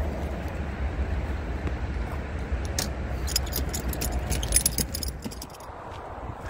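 Dog stroller on pneumatic tyres and a walker's footsteps crunching over a gravel path, close by, with a steady low rumble. A quick run of metallic jingling and clicking comes in the middle, then the sounds drop away about five seconds in as they move off.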